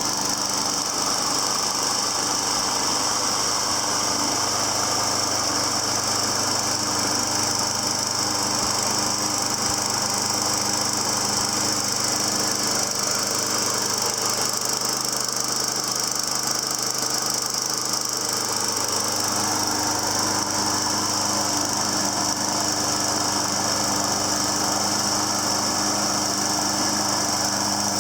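Briggs & Stratton engine of a Troy-Bilt TB230 21-inch push mower running steadily, freshly cold-started, with a slight change in its low hum partway through.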